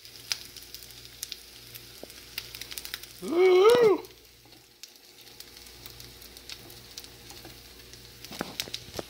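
Salmon fillet frying in butter and olive oil in a nonstick pan: steady sizzling with small spitting crackles. About three seconds in, a loud, short pitched sound rises and falls for under a second.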